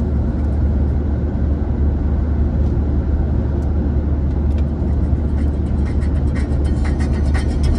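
Steady low drone of road and engine noise inside an Audi A3's cabin cruising at motorway speed.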